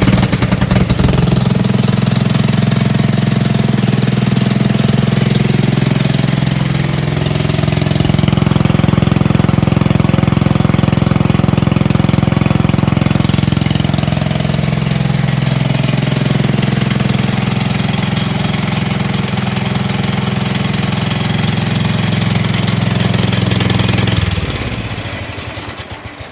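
Wheel Horse C-81 garden tractor's single-cylinder Kohler engine running through its newly welded exhaust, test-run to hear how the exhaust sounds. Its speed drops and comes back up in the middle, and it is shut off about 24 seconds in, dying away.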